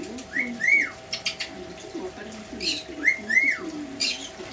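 Small pet parrots (lovebirds and a caique) calling: short sharp chirps, and twice a pair of quick rising-and-falling whistled calls, over soft low chatter.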